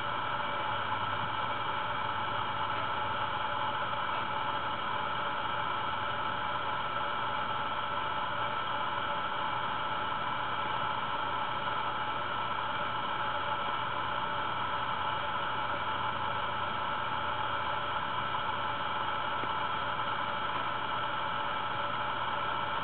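Steady static-like hiss with a faint hum underneath, unchanging: background noise of the recording itself.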